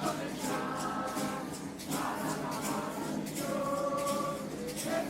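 A group of voices singing together in long held notes, like a choir, with the pitch changing every second or two.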